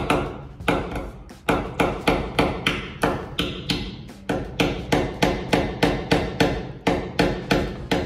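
Hand hammer striking a nail into the wall in a steady run of sharp blows, about three a second, with brief breaks about a second and a half in and again about four seconds in.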